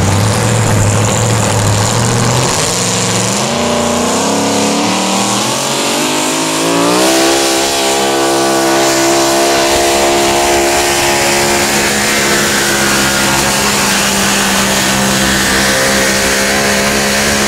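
Supercharged Hemi V8 of a pulling pickup truck under full load as it drags a weight-transfer sled. Its revs climb in steps over the first seven seconds or so, then hold high and steady.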